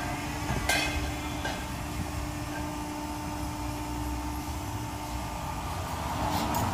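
Steady low mechanical rumble with a constant hum, broken by a sharp click just under a second in and another near the end.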